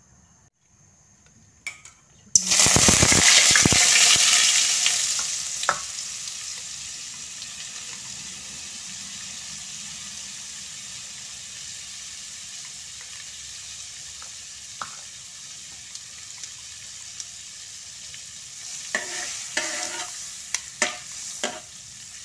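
A block of margarine hits hot oil in a metal wok and sizzles loudly at once, settling after a few seconds into a steady quieter sizzle as it melts. Near the end a spatula stirs it, knocking and scraping against the wok several times.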